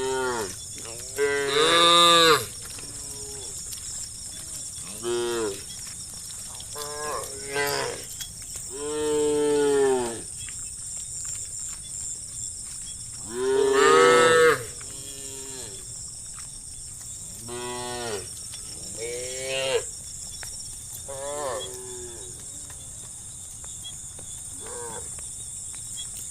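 Cattle mooing over and over, a dozen or so calls of different lengths, each rising and falling in pitch. The loudest come about two seconds in, around nine seconds and around fourteen seconds.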